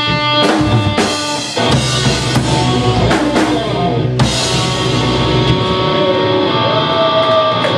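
Live rock band playing: drum kit with cymbal crashes, distorted electric guitars and bass. Over the last couple of seconds, held guitar notes ring out.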